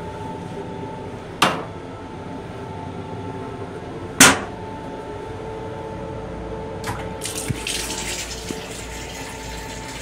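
Two sharp knocks, about a second and a half in and about four seconds in, then the sensor faucet in an M7 railcar restroom starts about seven seconds in and runs water into the sink. A steady hum runs underneath throughout.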